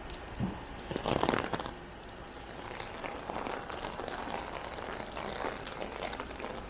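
Steady rain falling on the street, with a louder crinkling, crackling burst about a second in.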